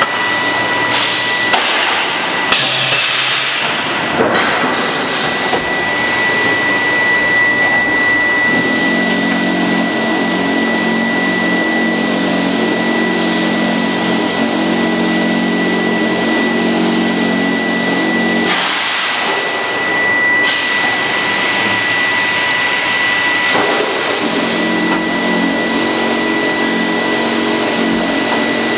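Grinding-ball production-line machinery running loudly and steadily, with a constant high whine over it. A deeper multi-tone hum joins in about a third of the way through, drops out past the middle, then comes back near the end.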